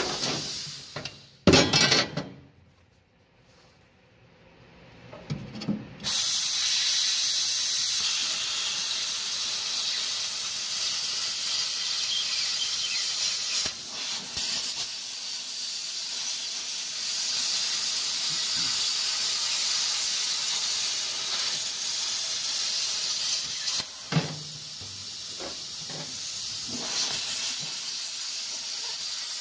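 Plasma cutter cutting through a car's sheet-metal floor, a steady hiss of arc and compressed air. It stops for a few seconds near the start, then starts again and runs steadily.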